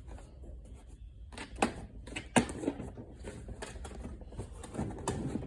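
Scattered clicks and knocks of hard plastic organizer cases and small parts being handled, the loudest about two and a half seconds in.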